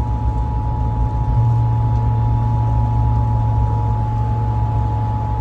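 Emergency Alert System attention signal: two steady tones sounding together as one continuous alert, the signal that comes just before a severe thunderstorm warning is read. Underneath is a low rumble inside the truck, which gets louder about a second and a half in.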